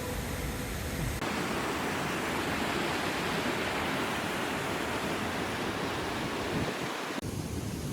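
Waterfall rushing, a steady even roar of falling water; its character changes abruptly about a second in and again near the end.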